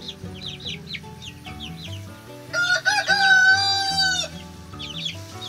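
Australorp chicks peeping, a quick run of short, high, falling chirps. A rooster crows once, loud and drawn out for nearly two seconds, starting a little past two and a half seconds in.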